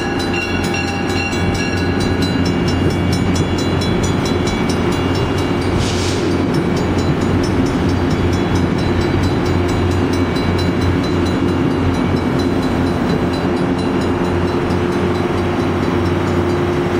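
Metro-North push-pull train passing close by at speed: Shoreliner coaches rolling past with a steady rumble and drone, the BL20GH diesel locomotive pushing at the rear and drawing level near the end. A short hiss sounds about six seconds in.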